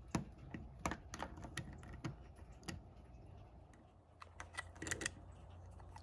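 Light clicks and taps of a smart deadbolt's interior housing being handled and fitted against the door's lock hardware. They are scattered, with a quick run of them about four to five seconds in.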